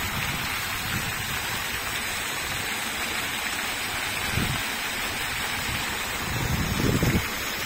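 Steady hiss of falling, splashing water from a working outdoor fountain, with two brief low rumbles about four and seven seconds in.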